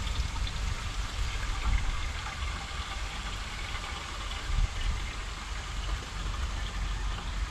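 Petrol flowing from a Birchmeier Rapidon 6 fuel can's push-down valve spout into the fuel tank of a Toro Greenmaster 1000 reel mower, a faint steady trickle under a continuous low rumble.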